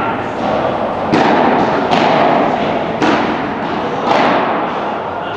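Padel ball struck back and forth in a rally: sharp racket hits about once a second, echoing in a large hall.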